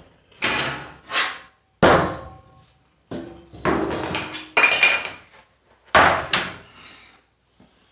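A series of about six sharp knocks and clatters as the opened plastic case of a Casio CT-360 keyboard and its parts are handled.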